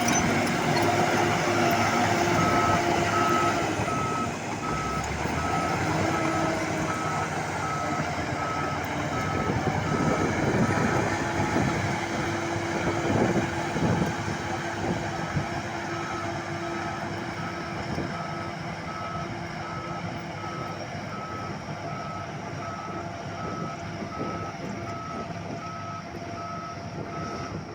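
Reversing alarm on heavy construction machinery beeping at a steady, even pace over the machine's engine running; the engine is louder in the first half and eases off later.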